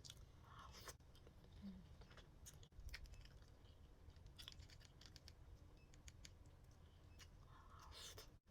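Faint scattered clicks and soft scrapes from handling sushi and utensils, a few light ticks spread irregularly, with a small cluster near the end.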